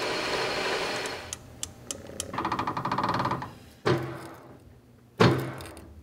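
Metal lathe work: a hiss of the tool cutting a turned steel shaft, then a fast metallic rattle lasting about a second, then two sharp metal clanks with ringing as a wrench works the lathe's four-jaw chuck.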